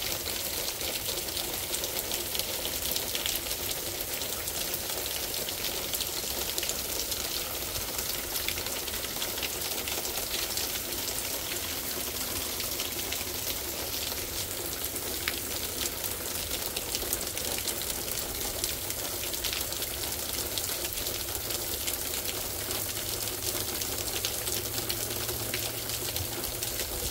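Heavy thunderstorm rain pouring down steadily, a dense, even hiss of drops.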